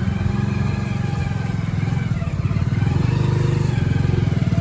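Honda motorcycle engine running steadily at low speed while towing a loaded donkey cart tied behind it, its pitch rising slightly about halfway through.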